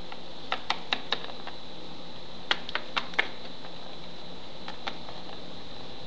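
Hard plastic toy figures clicking and tapping against a wooden tabletop as they are picked up and set down by hand. The taps come in two quick groups of four, one about half a second in and one about two and a half seconds in, with a faint single tap near the end. A faint steady high whine runs underneath.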